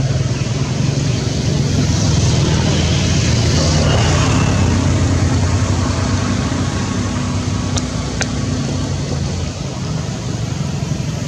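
A steady low engine drone, like a motor running nearby, with two faint ticks about eight seconds in.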